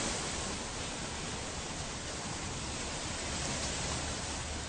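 Steady rushing wash of small lake waves breaking on a sandy shore, with a low rumble underneath.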